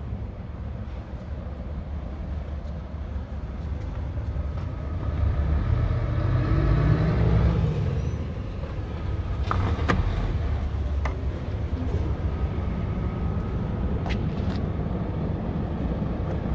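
Heavy vehicle engine running with a steady low rumble, swelling briefly in the middle, with a few sharp plastic clicks as a filler cap is handled and lifted off.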